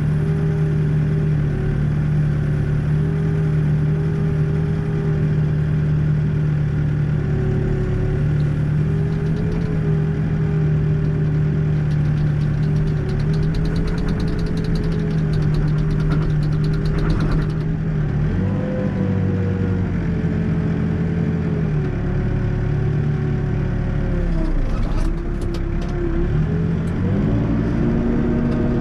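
Backhoe's diesel engine running steadily, dipping and rising in pitch a few times as the hydraulics work the bucket, with pitch climbing near the end. A stretch of rattling comes around the middle as the rock is spread.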